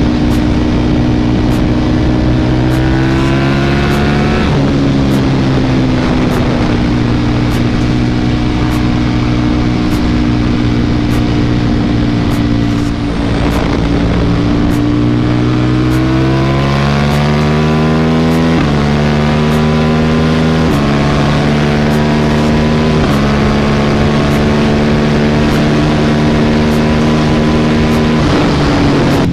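KTM RC8R's V-twin engine through a Jester aftermarket exhaust, riding under way. The engine pitch climbs and drops back at an upshift about four seconds in, then holds steady for a stretch of cruising. In the second half it accelerates through several quick upshifts, each one stepping the pitch down.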